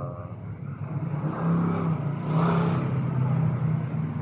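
A motor vehicle's engine droning, growing louder from about a second in, with a brief burst of hiss midway.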